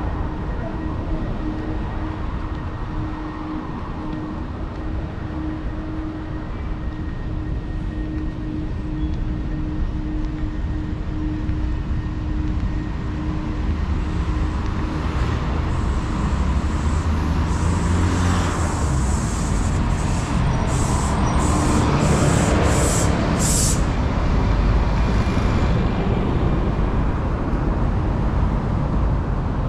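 Street traffic: vehicles running and passing by, with a steady engine hum through the first half and louder swells as vehicles go past later on. A quick run of short, sharp high-pitched sounds comes about twenty seconds in.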